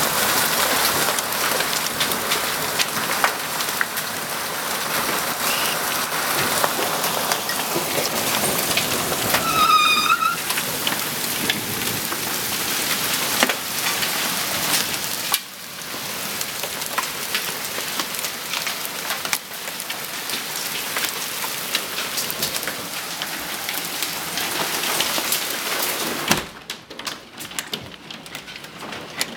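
Hailstorm: hailstones pelting the deck, yard and trees as a loud, dense hiss of countless small impacts with sharper ticks through it. About ten seconds in, a brief wavering high tone sounds over it. Near the end the noise drops and the separate ticks stand out.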